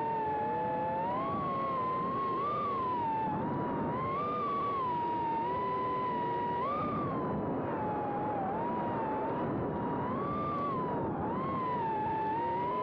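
Electric RC short course truck's motor and drivetrain whining, the pitch rising and falling every second or two with throttle, over a steady rushing of tyres and chassis on the track.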